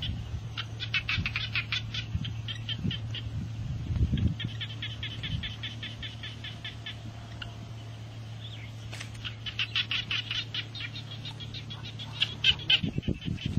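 Outdoor animal calls: runs of rapid, high chirping clicks, one about a second in, another around four seconds, and a longer one from about nine seconds, over a steady low hum. A few dull knocks come around four seconds and near the end.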